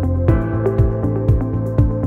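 Background music: an electronic instrumental track with sustained chords over a steady beat.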